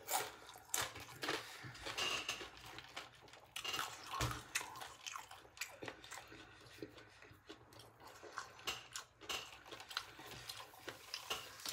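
Close-up chewing of a crunchy tortilla chip: irregular crisp crunches and mouth sounds, fading to softer chewing toward the end.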